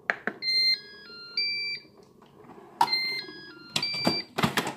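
Moulinex Cookeo electric pressure cooker's electronic beeps: a button click, then a short stepped melody of beeps as the cooking program starts. About three seconds in, a second melody and a held beep sound as the display warns to close the lid. A few sharp clicks or knocks follow near the end.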